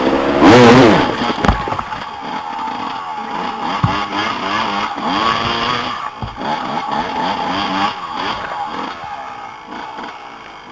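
Dirt bike engine revving up and down on a rocky trail, with a loud burst of throttle in the first second and lower, uneven throttle after that. A few low thumps come through as the bike goes over rocks.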